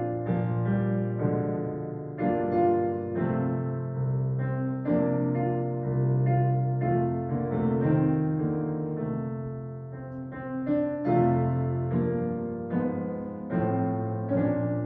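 Solo piano playing a slow, quiet piece in full chords over a held bass, each chord struck and left to ring as the next comes in.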